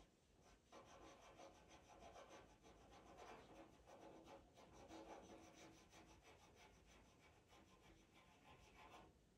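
Faint scratching of a pastel pencil drawn in rapid short strokes across Pastelmat paper, laying in fur, starting under a second in.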